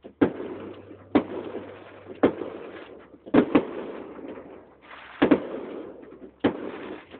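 Fireworks display going off: a string of sharp bangs, roughly one a second with two quick pairs in the middle, each followed by a fading hiss.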